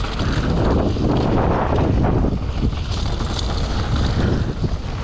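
Wind buffeting the microphone of a mountain bike descending a dirt trail, with its knobby tyres crunching and skidding over loose dirt and small stones.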